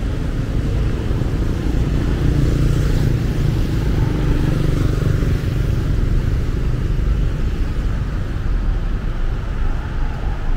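Street traffic on the road alongside: a steady rumble of vehicle engines and tyres, swelling as a vehicle passes about two seconds in and easing off a few seconds later.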